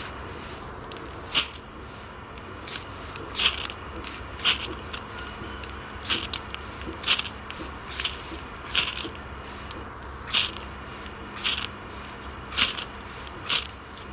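Fire steel (ferro rod) scraped hard with a blade again and again, showering sparks onto fine wood shavings to light them: about a dozen sharp scraping strikes, roughly one a second.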